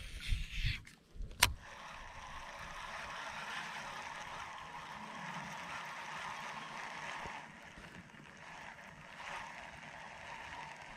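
Water lapping and sloshing against a kayak's plastic hull, steady throughout, after a few handling knocks and a sharp click in the first second and a half.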